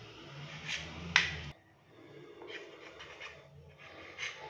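Knife blade clicking and scraping against a ceramic plate while bread crusts are cut off. There are a few sharp clicks, the loudest a little over a second in, then fainter clicks after a brief dropout.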